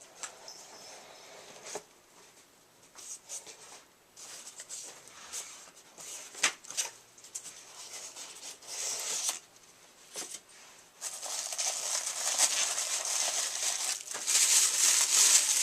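Packaging being handled and opened: scattered rustles and small clicks, then from about two-thirds of the way in a few seconds of steady crinkling of plastic and cardboard.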